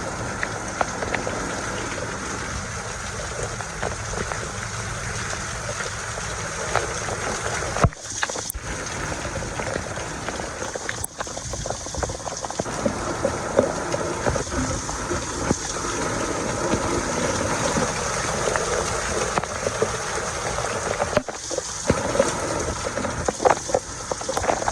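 Steady rain falling, an even rushing hiss dotted with small drop ticks. It breaks off for a moment twice, about eight seconds in and again a few seconds before the end.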